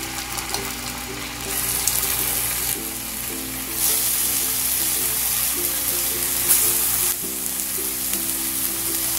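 Marinated boneless chicken pieces sizzling as they shallow-fry in a little hot oil in a pan. The sizzle gets louder about one and a half seconds and four seconds in, as more pieces go in, and eases a little near the end. Background music plays along.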